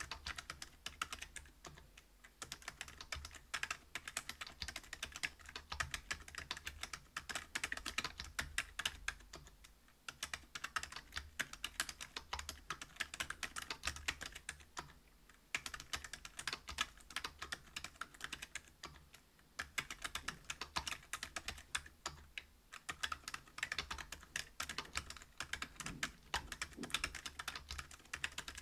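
Continuous fast typing on a mechanical keyboard with Gazzew Bobagum 62 g silent linear switches in a brass plate, giving soft, muted keystroke clicks with short pauses now and then.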